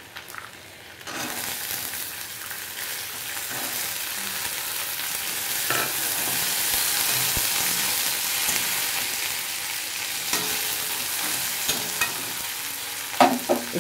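Soaked white peas hitting hot mustard oil in a metal kadhai and sizzling, the sizzle starting about a second in and holding steady. A slotted metal spatula scrapes and taps against the pan a few times as the peas are stirred.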